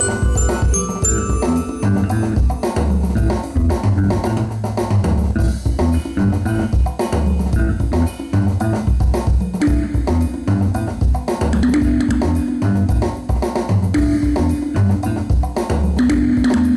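Band music with a drum kit keeping a steady beat under bass and guitar; longer held notes come in about ten seconds in.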